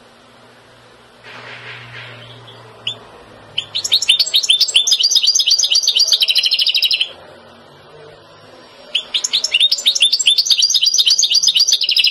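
European goldfinch singing: two bouts of rapid, high twittering song, the first starting about three and a half seconds in and the second about nine seconds in, each lasting around three seconds.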